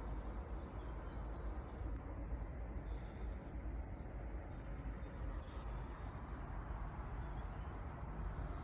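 Steady outdoor background noise with a low rumble and hiss, picked up by a video doorbell's microphone, with faint bird chirps about three to six seconds in.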